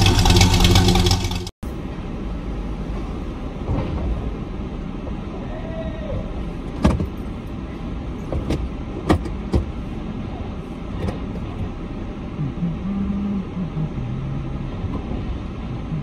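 A short loud burst of many steady tones that cuts off sharply, then the steady rumble of a vehicle running with a few sharp knocks and clicks.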